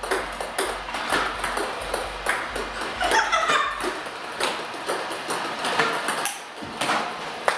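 Ping-pong balls clicking in a quick, irregular series as they are fed by a training robot, hit with a paddle and bounce off the table and a hardwood floor.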